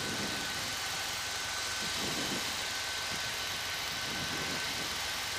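Steady cabin noise of a Piper PA-28-151 Cherokee on final approach with a little power on: its four-cylinder Lycoming engine and propeller heard as an even hiss, with a thin steady whine above it.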